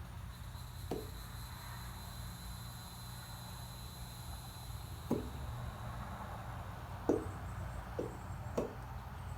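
Plastic glue bottle being tipped and handled over a bowl to get the thick glue out, with five short soft knocks spread through. A steady low hum sits underneath.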